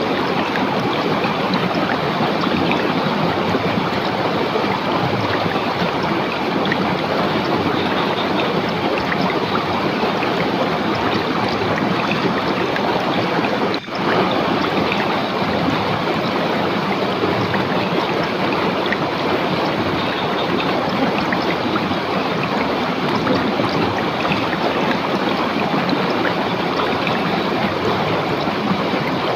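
River water rushing steadily over rocks, a continuous even wash. It dips for an instant about halfway through.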